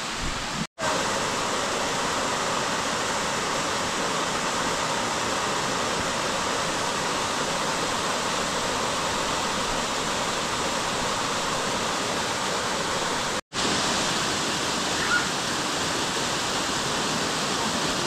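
Amicalola Falls, a cascading mountain waterfall, rushing steadily over rock. The sound cuts out for a split second twice, under a second in and about thirteen seconds in.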